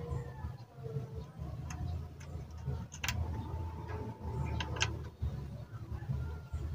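Small clicks and taps of a TV circuit board and a capacitor being handled as the capacitor is fitted, with two sharper clicks about three and five seconds in, over a steady low rumble.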